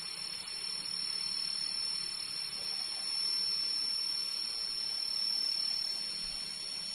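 Steady, high-pitched insect chorus in tropical forest, a shrill drone that holds the same few pitches throughout.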